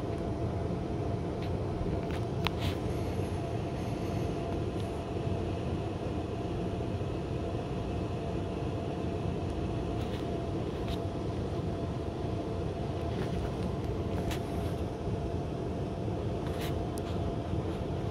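Hotel air-conditioning unit running: a steady low drone with a constant hum tone, and a few faint clicks scattered through it.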